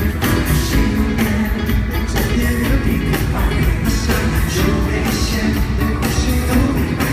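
Live pop band music at a concert, loud, with a steady drum beat.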